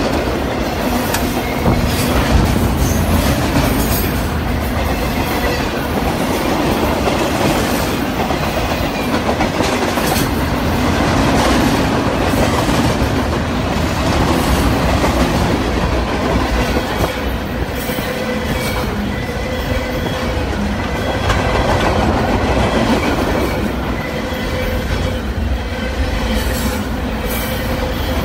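Freight train of loaded flatcars rolling steadily past at close range: continuous rumble of steel wheels on rail with scattered clicks and clanks.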